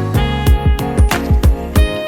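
Background music with a steady drum beat and plucked guitar-like notes.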